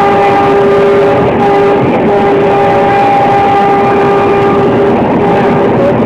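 WDP4 diesel locomotive's air horn sounding in long, near-continuous blasts with a few short breaks, over the rushing rumble of express coaches passing at speed.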